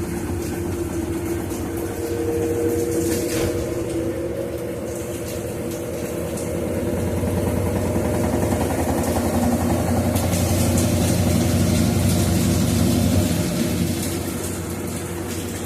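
Brastemp Ative BWL11 washing machine in its spin cycle with a load of coloured clothes: a steady motor hum and drum drone that grows louder toward the middle and eases off near the end.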